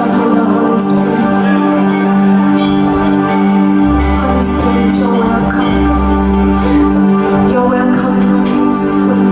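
Church worship music: held keyboard chords with deep bass notes coming in about four seconds in and light cymbal taps keeping time.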